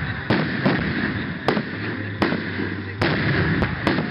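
Aerial firework shells bursting overhead: an irregular string of sharp bangs, about seven in four seconds.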